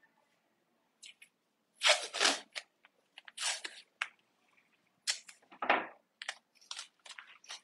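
Tape being pulled off a roll and torn to fix the paper down on the table: a string of short, sharp rasps, the loudest about two seconds in and just before six seconds.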